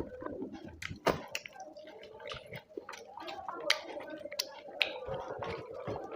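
Close wet chewing and lip smacking of someone eating rice and curry, with several sharp smacks and clicks at irregular moments over a faint steady hum.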